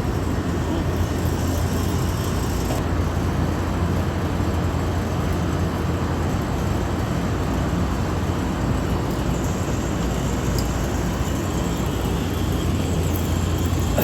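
Steady drone of running machinery: a strong, constant low hum under a broad rushing noise, unchanging throughout.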